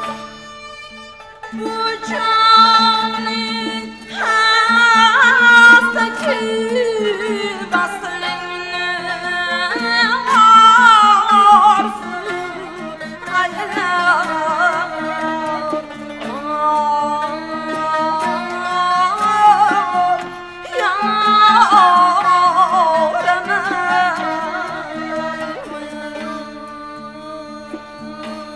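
A woman singing Uzbek maqom in long, ornamented phrases whose notes slide and waver, often falling in pitch, over string-instrument accompaniment.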